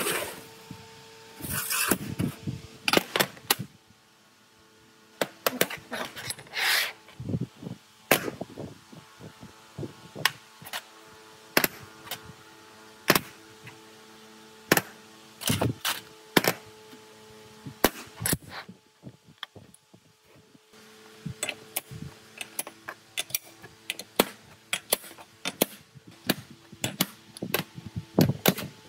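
Irregular sharp knocks and clanks at about one a second, some in quick clusters, as tools strike metal parts of an old wood planer during restoration work.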